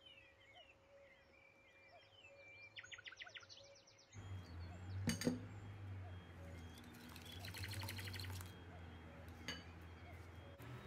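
Birds chirping faintly, with a fast trill about three seconds in. Then, over a low hum, a wire whisk clinks against a glass bowl: two sharp knocks about five seconds in, then a run of rapid whisking strokes.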